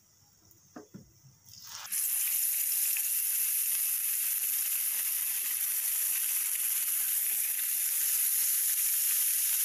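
Whole tilapia going into hot cooking oil in a frying pan: after a near-quiet start with a couple of faint clicks, the oil breaks into a sudden, steady sizzle about two seconds in that carries on as the fish fries.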